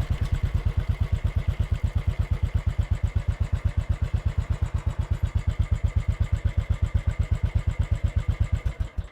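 Royal Enfield Bullet's single-cylinder four-stroke engine idling with an even, rapid thumping beat, then switched off at the very end, the beat stopping abruptly.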